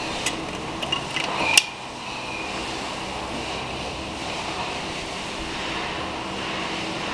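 A few sharp metallic clinks with a short ring in the first two seconds, the loudest about a second and a half in, as a steel shaft of a Nissan CD00A gearbox is handled and fitted through its bearing into the case. After that only a steady background hum, like a fan.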